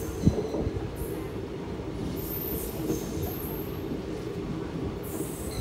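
Passenger train running along the line, heard from aboard: a steady rumble of the wheels on the rails, with a single sharp knock just after the start.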